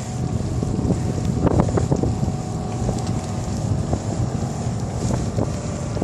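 Wind buffeting the microphone of a moving bicycle: a steady low rumble, with scattered clicks and rattles, a cluster of them about a second and a half in.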